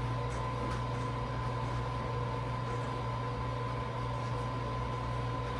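Steady electrical-sounding hum and hiss with a thin constant high tone, broken only by a few faint light clicks.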